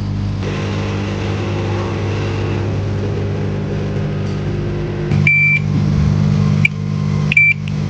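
Steady electrical hum of bench equipment, with two short high electronic beeps about two seconds apart in the second half and a click between them.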